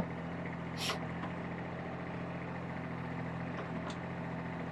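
Kubota diesel engine running steadily at a low, even speed, with a short hiss about a second in.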